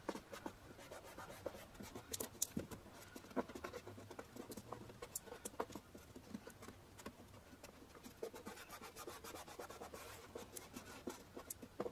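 Thumb and fingers pressing and rubbing vinyl light-wrap film down onto a car taillight lens: faint scratchy rubbing with scattered small ticks.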